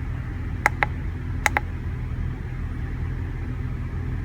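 Ford E-series van engine idling steadily with a rough idle, which the owner suspects comes from worn spark plugs. Two pairs of short sharp clicks come about half a second and a second and a half in.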